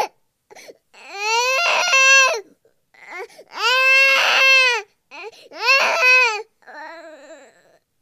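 A baby crying in drawn-out wails, each rising and falling in pitch and lasting about a second, with short gasping catches between them; three loud wails are followed near the end by a quieter one.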